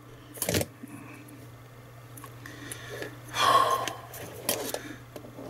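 Handling noise from a plastic cable end cap and mains lead being turned over in the hands: a sharp click about half a second in and a short rushing noise about three and a half seconds in, over a low steady hum.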